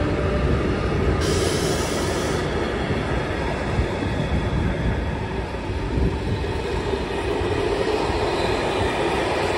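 Passenger coaches of an electric-hauled express train rolling past at speed: a steady rumble of steel wheels on the rails.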